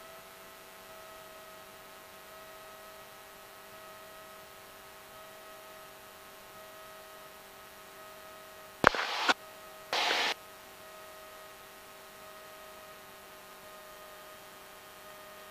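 Steady electrical hum and faint hiss on a Cessna 172's radio and intercom audio feed, with no engine noise. Two short bursts of radio static about nine seconds in and again a second later, like squelch breaks from a brief keyed transmission without speech.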